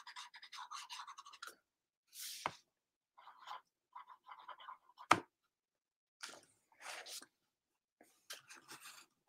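Graphite pencil scratching on sketchbook paper in short strokes, with a sharp tap about two and a half seconds in and a louder one about five seconds in.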